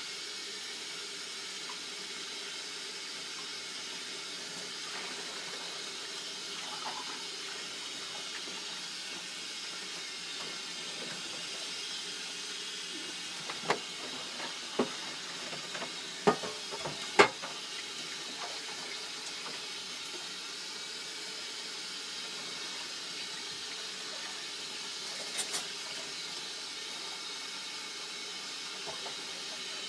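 Kitchen tap running steadily into a stainless steel sink while raw chicken is washed under it. A few sharp knocks come about halfway through, and a quick double knock near the end.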